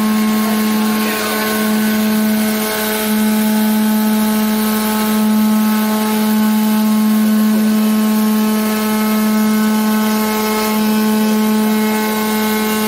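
CNC spindle driving a diamond milling cutter into glass under coolant spray: a steady, unchanging whine with a hiss behind it.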